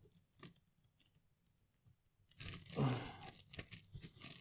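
Paper and plastic packaging rustling and crinkling as items are lifted out of a cardboard box: a few faint ticks at first, then from about halfway a stretch of rustling with small clicks.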